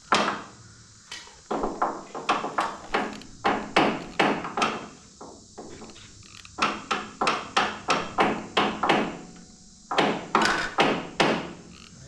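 Hand hammer tapping on the steel blade guide roller assembly of a Wood-Mizer LT35 bandsaw mill, striking it forward to reset the loose guide roller. Sharp strikes come in several bursts of two or three a second with short pauses between.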